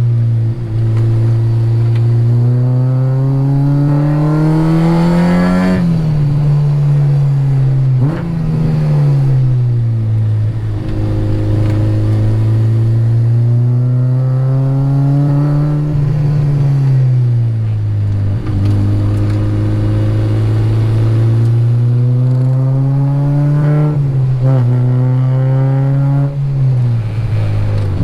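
K20-swapped Honda Integra Type R's 2.0-litre four-cylinder engine, heard from inside the car, pulling hard up through the revs, with sudden drops in pitch at upshifts about six and eight seconds in and near the end. In between, the engine note falls away under braking before climbing again.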